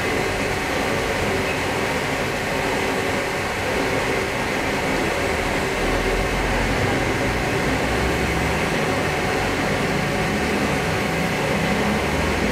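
Compressed-air spray gun hissing in one long, steady spray as clear lacquer is sprayed onto a motorcycle fuel tank.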